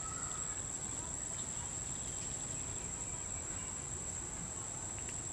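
Insects droning outdoors in a single steady high-pitched tone, over a low background rumble.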